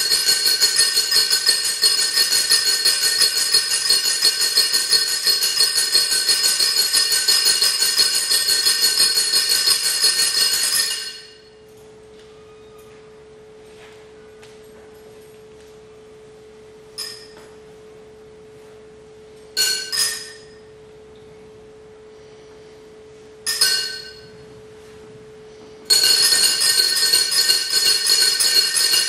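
Hand-held iron instruments shaken in a dense, continuous metallic jingle with many high ringing tones, which stops a little over a third of the way in. A single steady tone then holds, with three sharp metallic strikes ringing out over it, before the jingling starts again near the end.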